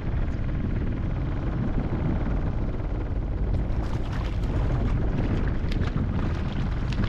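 Wind buffeting the microphone in a steady low rumble. From about halfway through, a hooked fish splashes sharply and repeatedly at the surface as it is reeled in.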